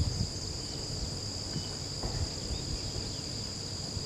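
Steady high-pitched chorus of insects, with a low rumbling noise beneath it and a few faint knocks about at the start.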